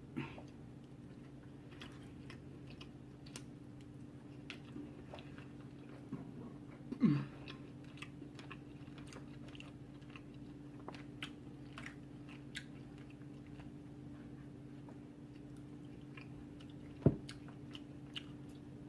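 Close-miked chewing of food: soft, scattered wet mouth clicks over a steady low hum. A brief louder sound about seven seconds in and a sharp thump about seventeen seconds in.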